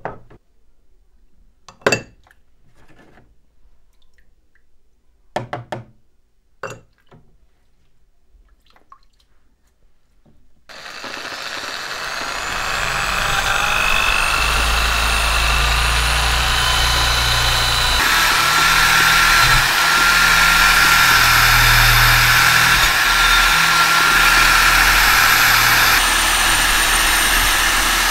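A few sharp metal clinks as rusty meat-grinder parts are handled in a plastic tub of liquid. About eleven seconds in, a rotary power tool starts and runs steadily with a high whine, its abrasive wheel grinding rust off the cast-iron meat grinder body; the pitch shifts a couple of times.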